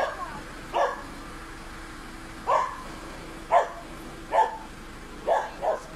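A small dog barking at a brown bear at the rubbish bins: about seven short barks at uneven gaps, two of them close together near the end.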